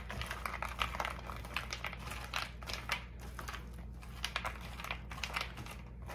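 Kitchen tongs with silicone tips tossing raw steak chunks, mushrooms, onion and frozen green beans coated in olive oil on a metal sheet pan: irregular soft clicks, scrapes and rustles as the pieces are turned over.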